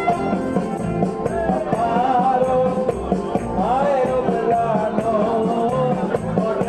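Upbeat dance music with a steady beat and a wavering melody line, with light shaken percussion.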